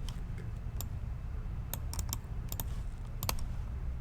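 Scattered sharp clicks from working a computer, about nine at irregular intervals over a steady low room hum.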